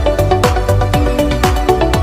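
Electronic dance music with a steady, fast kick-drum beat and synth chords.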